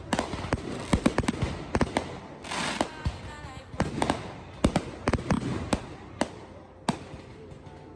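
Fireworks going off: a quick, irregular run of sharp bangs and pops, with a short burst of crackle about two and a half seconds in.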